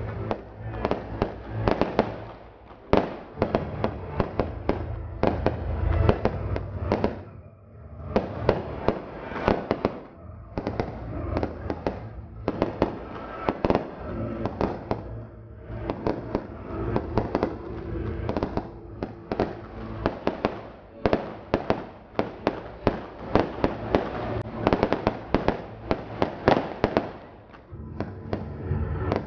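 Fireworks display: a rapid, dense barrage of bangs and crackle from bursting aerial shells and rockets, broken by a few brief lulls.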